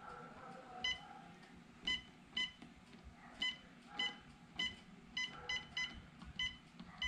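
Short electronic key beeps from a Humminbird Helix 12 fish finder as its joystick and buttons are pressed to pan the chart. There are about ten identical beeps at uneven intervals.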